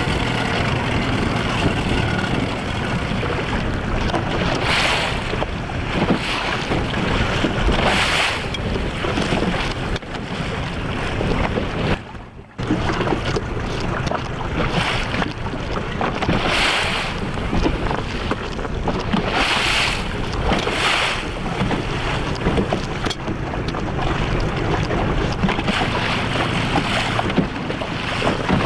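Wind buffeting the microphone over a steady rush of water on the open lake, with a wash or splash against the boat every few seconds. The sound drops out briefly about twelve seconds in.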